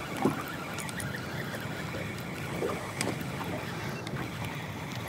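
Steady low wind and water noise, with a faint click about three seconds in.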